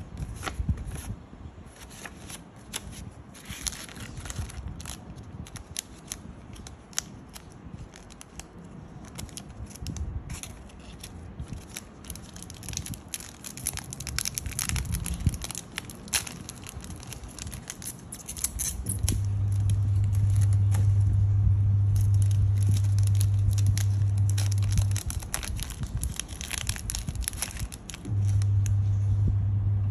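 A foil snack wrapper crinkling and tearing as it is opened by hand, with paper rustling. About two-thirds of the way in a loud steady low hum starts, breaks off for a few seconds, and comes back near the end.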